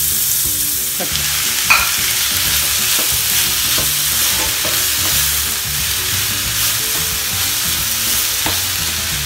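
Chopped onion, garlic, green chilli and tomato sizzling in hot oil in a frying pan, a steady hiss, while a spatula stirs them with a few brief scrapes against the pan.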